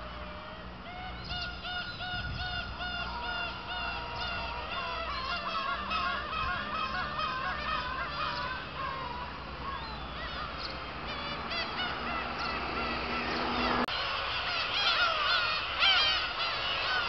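A colony of black-tailed gulls calling, many repeated calls overlapping. About 14 seconds in the sound changes abruptly and the calls become louder and closer.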